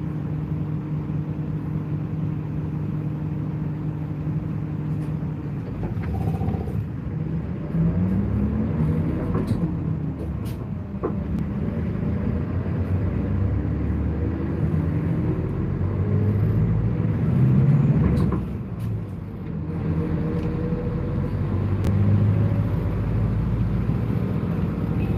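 Route bus engine heard from inside the cabin. It runs steadily at first, then pulls away with the pitch rising through the gears several times, over a continuous road rumble.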